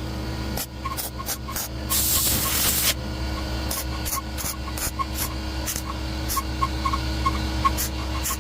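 MIG welder stitch-welding a steel patch panel onto a truck bedside: short, irregular bursts of arc crackle with one longer hissing bead about two seconds in, over a steady machine hum.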